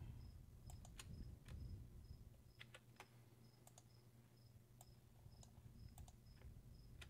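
Near silence, broken by scattered faint computer mouse clicks as files are selected and dragged. A faint, short, high chirp repeats evenly about twice a second throughout, over a low steady hum.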